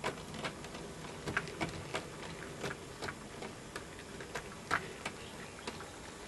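HO-scale model train, a PA diesel locomotive set, rolling off a turntable bridge onto the approach track; its wheels click irregularly over the rail joints, over a faint low hum.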